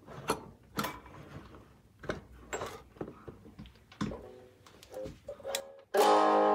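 A few handling knocks and clicks, then about six seconds in an electric guitar chord rings out loud and sustained through a Daiso USB mini speaker converted into a guitar amp, overdriven by a Boss Blues Driver BD-2 pedal.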